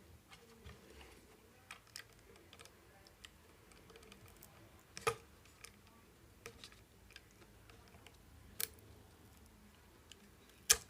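Faint, scattered clicks and small scrapes of a flathead screwdriver being run along under a lithium battery to pry it loose, with a few sharper clicks, the sharpest near the end.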